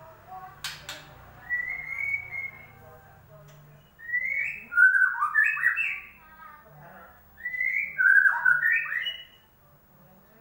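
White-rumped shama (murai batu) song: a short whistle, then two loud phrases of quick rising and falling whistled notes. Two sharp clicks come just before the first whistle.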